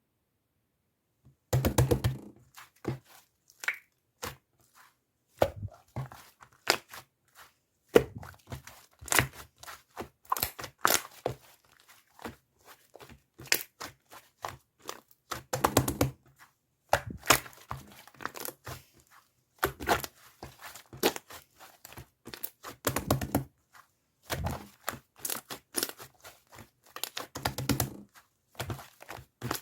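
Irregular handling noises: sharp clicks, crinkling and tearing-like rustles with occasional soft thuds, starting after a second and a half of silence.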